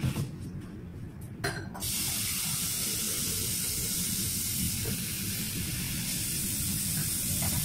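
A couple of knocks from handling, then a steady hiss of running water that starts abruptly about two seconds in and cuts off shortly before the end.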